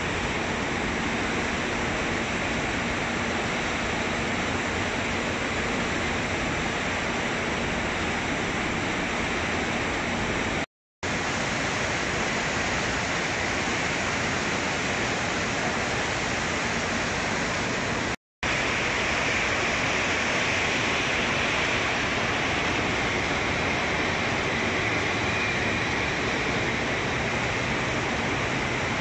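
Steady, even noise of graphite-processing plant machinery running, such as the ball mill and conveyors, cut off to silence twice for an instant about eleven and eighteen seconds in.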